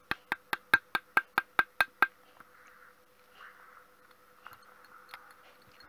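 Moped exhaust downpipe being knocked repeatedly and quickly, about five sharp knocks a second for roughly two seconds, then stopping, to shake loose the ash left after burning the carbon out of it with a blowtorch.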